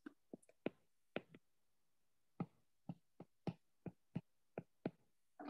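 About a dozen faint, short clicks and taps at irregular intervals, made while words are handwritten stroke by stroke onto an on-screen whiteboard.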